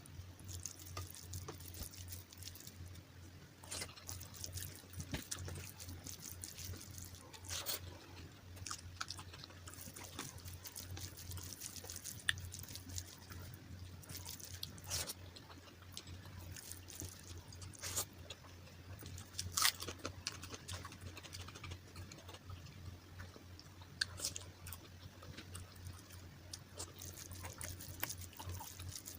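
Close-miked eating: wet chewing with scattered sharp mouth clicks, over a steady low hum.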